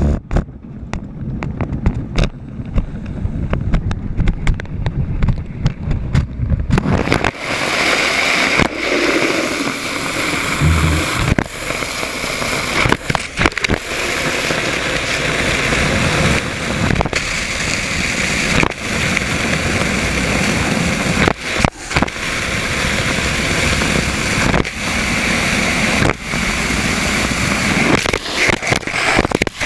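Noise inside a concrete pump's pipeline as a cleaning sponge carries a camera through it: low rumbling with scattered knocks at first, then from about seven seconds in a loud steady rushing hiss with many sharp knocks and scrapes.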